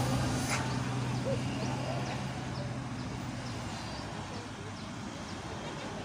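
Hino RN285 diesel tour bus engine running as it pulls away, fading within the first couple of seconds into passing-traffic road noise. Small birds chirp repeatedly, short high notes about twice a second, from about two seconds in.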